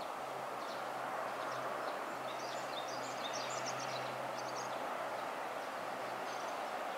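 Double-headed JR EF64 electric locomotives hauling a freight train slowly into the station: a steady low hum over a broad rolling rumble. Short high chirps cluster about two to four seconds in.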